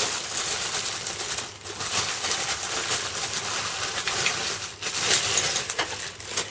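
Bench-mounting clamps being handled: continuous rustling with many light clinks and rattles.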